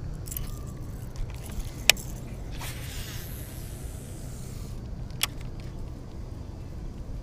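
Baitcasting reel in use during a cast: a few sharp clicks as the reel is handled, then a whirring hiss of about two seconds as the spool pays out line, and another click after it.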